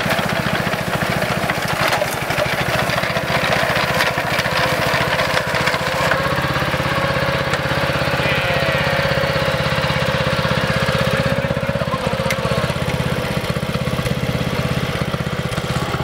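Small petrol engine of a walk-behind rice harvesting machine running steadily under load as it cuts a row of rice.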